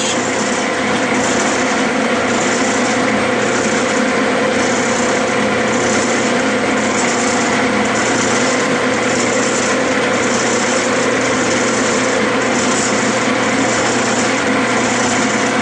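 Clausing metal lathe running steadily under power while a single-point tool cuts a thread in Delrin plastic. The motor and gear train hum, with a high whine that pulses faintly about once a second.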